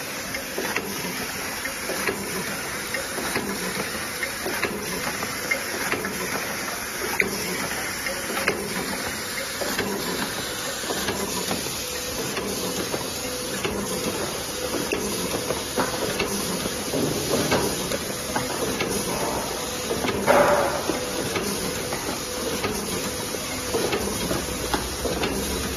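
Automatic three-dimensional transparent-film overwrapping machine running steadily for boxes: an even mechanical hiss with a faint hum and many small clicks from its feed and folding mechanism, and a brief louder clatter about twenty seconds in.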